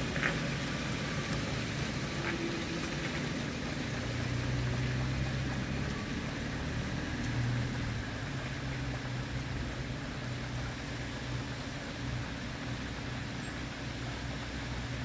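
Steady low rumble of vehicle traffic, with an even hiss of rain falling on wet pavement.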